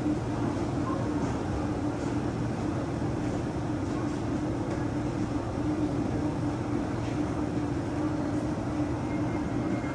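KTX-Eum electric multiple unit at the station platform, giving a steady hum with a low droning tone over a rumble. A faint high whine joins near the end.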